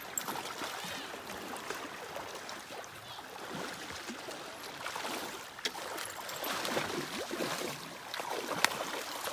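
River water lapping and splashing as a hooked salmon thrashes at the surface while it is played on a rod, with a few sharp clicks; the loudest click comes near the end.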